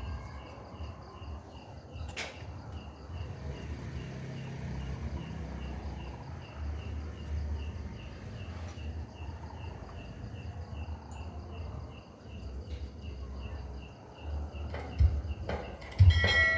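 A cricket chirping steadily at about three chirps a second over a low rumble. Near the end come a few loud drum thumps.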